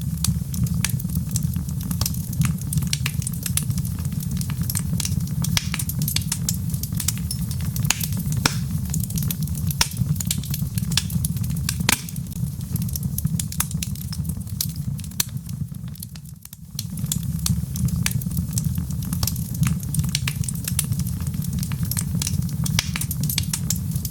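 Wood fire crackling: a steady low rumble of flame with frequent sharp pops and snaps. The sound drops away for a moment about two-thirds of the way through, then resumes.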